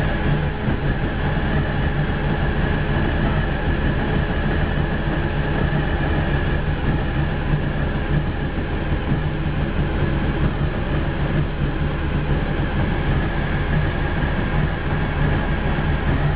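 VW bus engine, running on Megasquirt MS-II fuel injection with EDIS ignition, running steadily at an even speed.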